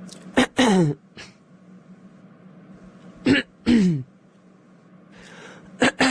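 A person clearing their throat, twice, with a third starting near the end. Each is a short sharp catch followed by a longer 'hem' that falls in pitch, over a faint steady hum.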